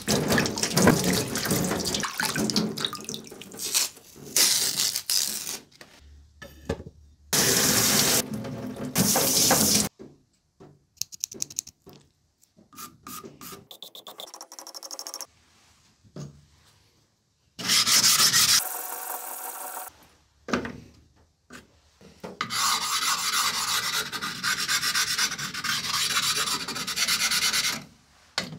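Wet abrasive rubbing on a carbon-steel yanagiba sashimi knife blade and a whetstone: several stretches of hand sanding a few seconds long, broken by short pauses and a few clicks near the middle.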